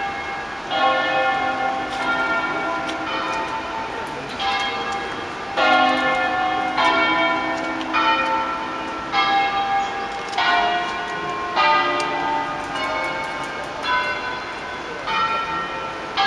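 Church bells of the Basilica of Sant'Anastasia rung as a concert in the Veronese system, struck one after another about once a second in a melodic sequence, their tones ringing on and overlapping.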